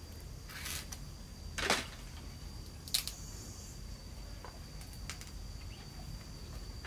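Bamboo being worked by hand: a few short scrapes and one sharp click, over a steady high insect drone.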